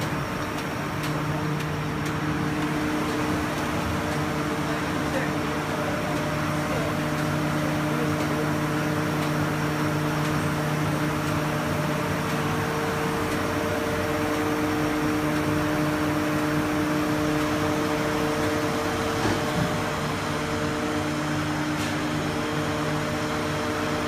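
Komori Lithrone LS 40 eight-colour sheetfed offset press running at production, a steady mechanical din with a constant hum of several pitches over it.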